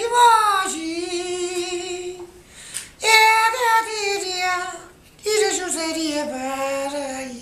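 An elderly man singing unaccompanied in a high voice: three long phrases of held notes, each sliding down in pitch, with short breaths between them.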